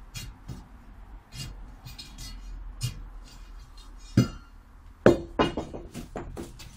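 Metal digging tools working a post hole: repeated scraping knocks into soil and rubble, with sharper metallic clinks about four seconds in and a quick run of them a second later.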